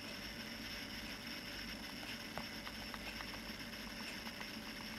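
Quiet room tone with a steady low hum and hiss, and a run of faint, light ticks in the middle as a fingertip taps the glass touchscreen of a Smok G Priv vape mod.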